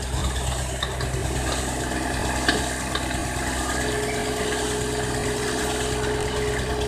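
Hydraulic excavator's diesel engine running steadily, with a sharp knock about two and a half seconds in.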